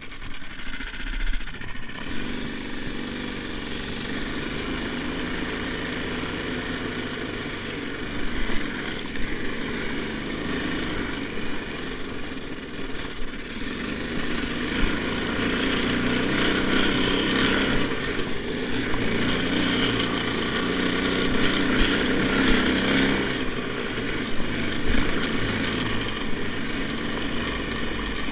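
Lifan 9 hp single-cylinder four-stroke engine of a snow bike running under load, its pitch shifting with the throttle; it runs louder for several seconds past the middle.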